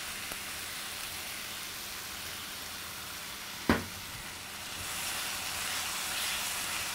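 Onions, bacon and brown sugar sizzling steadily in a skillet, with one sharp knock about halfway through.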